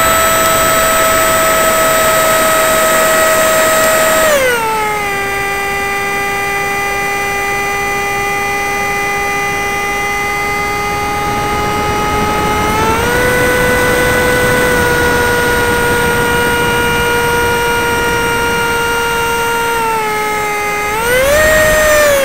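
A radio-controlled model plane's motor and propeller, heard from a camera fixed to its tail: a steady high whine. It drops in pitch about four seconds in as the motor slows, rises a little around thirteen seconds, then climbs back up near the end.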